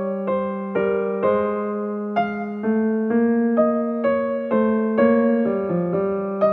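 Background music: a gentle keyboard melody over held chords, with a new note about every half second.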